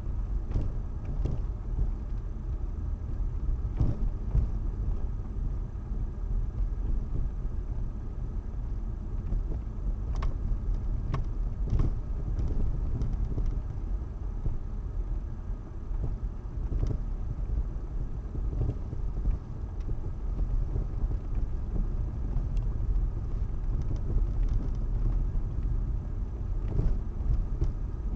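Car on the move with a steady low road rumble, and irregular short knocks every few seconds from the suspension, the sign of a suspension fault.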